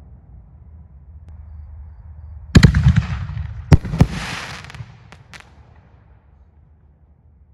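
A 1.75-inch canister artillery shell bursting overhead with a loud bang about two and a half seconds in. Crackling follows, with two more sharp reports a second later and a few small pops as it fades.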